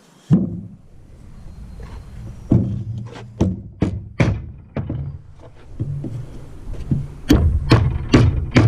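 Repeated hammer blows on side-by-side suspension or hub parts during reassembly, in two groups of sharp knocks about half a second apart, over a low steady hum.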